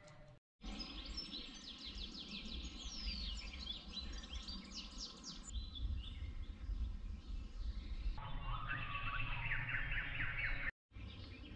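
Many songbirds chirping and whistling in a dawn-chorus tangle of quick rising and falling calls over a low background rumble. The sound drops out briefly just after the start and again near the end, and at about eight seconds the calls change to lower trilling phrases.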